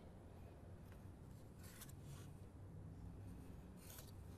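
Faint scratching of a pencil drawing lines on a wooden crosspiece along a square: a few short strokes, about a second and a half in and again near the end.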